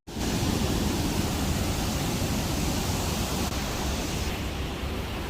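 Steady rushing roar of the Rhine Falls' water. Its hiss thins slightly a little past four seconds in.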